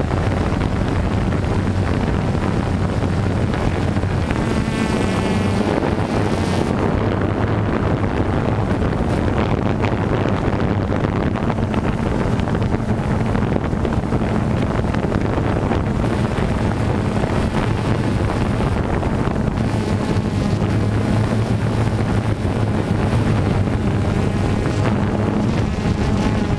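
DJI Phantom 2 quadcopter's electric motors and propellers humming steadily in flight, heard close up from on board, with wind buffeting the microphone.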